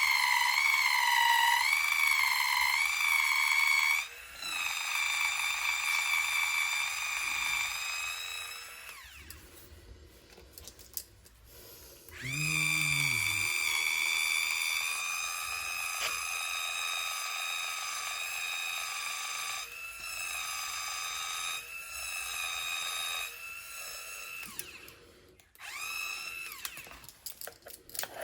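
Small handheld electric tool's motor whining at a high, steady pitch, wavering at first, then stopping and starting several times.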